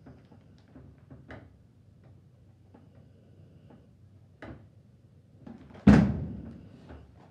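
Faint rustling and small scratchy knocks of a hand rubbing a dog's fur as it lies on a carpet, then one loud thud about six seconds in that dies away over about a second.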